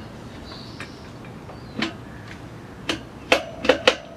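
Metal tire spoon knocking and clicking against the wheel rim as it is levered under a tire bead and tube saddle: a few sharp knocks, three in quick succession near the end, followed by a faint metallic ring.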